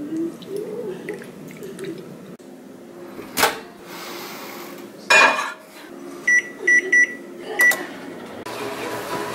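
Over-the-range microwave oven being used: the door clicks open, then is shut with a knock. Four short keypad beeps follow as the time is set, and the oven starts running with a steady hum near the end.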